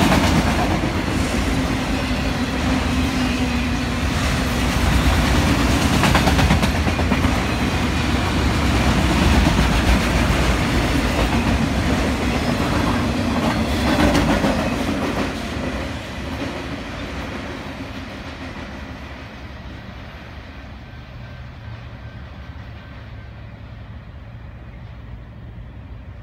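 Freight train of autorack and box cars rolling past on the rails, wheels clattering. The last cars pass about fifteen seconds in, and then the rolling sound fades steadily as the train moves away.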